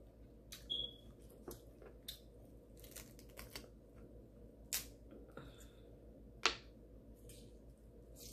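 Crab leg shells being cracked and snapped apart by hand: scattered sharp cracks and clicks, the loudest about six and a half seconds in.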